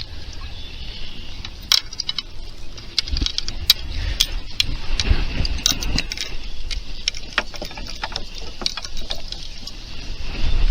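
Knocks and clicks of gear and paddle against a fishing kayak, with water moving and a low rumble of wind on the microphone.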